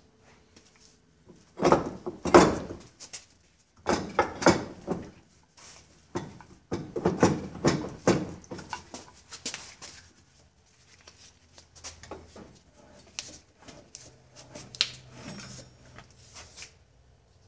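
Metal knocking and scraping in several bursts as a Johnson outboard's power trim and tilt unit is worked out from between the stern brackets, the heaviest clatter in the first half and lighter knocks after.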